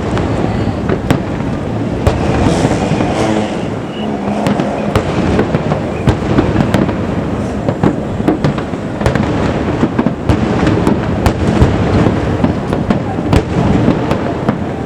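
Fireworks display: a dense run of aerial shell bursts, with many sharp bangs and crackles over a continuous low rumble.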